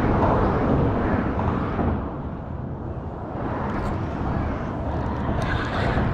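Steady low rumbling background noise, with a few light clicks in the last couple of seconds.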